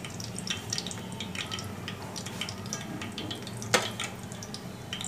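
Cumin seeds sizzling in hot oil in a pot, with many small crackles and pops as they crisp, and one sharper click near the end.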